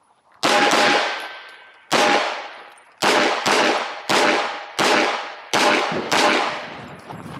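Walther PDP Fullsize 4.5-inch pistol firing a string of about eight shots, some singly and some in quick pairs, each report trailing off in a short echo.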